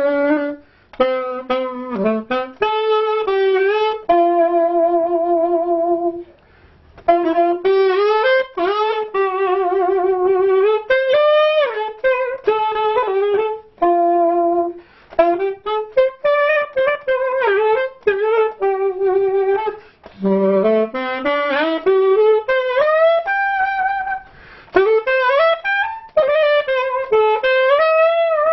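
Solo saxophone playing a slow, expressive melody. Held notes waver with vibrato, pitch slides up between some phrases, and there are short pauses between phrases.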